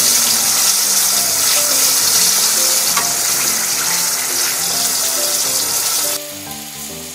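Frozen gyoza dumplings frying in hot oil: a steady, dense sizzle with small pops as the oil spatters from the water in the frozen dumplings. The sizzle drops abruptly in level about six seconds in. Soft background music plays underneath.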